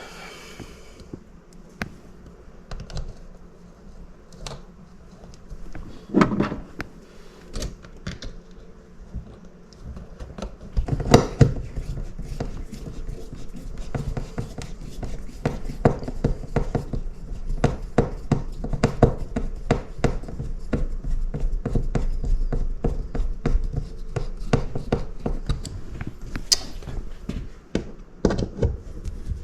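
Hand work fitting a thermostat back plate to a wall: irregular scratching, tapping and thunks of the plate and tools being handled, sparse at first and busier from about ten seconds in.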